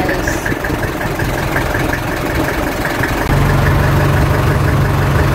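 Engine of a motorized outrigger boat (bangka) running steadily with a fast, regular ticking knock. A deeper, louder hum comes in about three seconds in.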